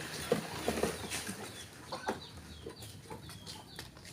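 Chickens clucking: several short clucks in the first half, then a run of short, high, falling chirps.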